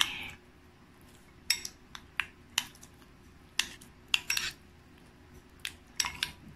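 Metal spoon clinking and scraping against a glass bowl while stirring soft melted cheese and cream cheese, in a scattered run of short, light clinks in small irregular clusters.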